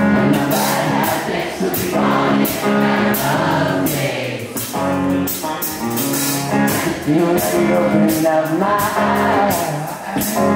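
Live rock band playing, with electric guitars, a drum kit keeping a steady cymbal beat, and singing.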